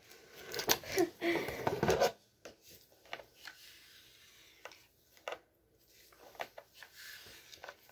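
Rustling and rubbing of hair and hands, loudest in the first two seconds, then quieter with scattered light clicks as a flat iron is clamped on and drawn down through the hair.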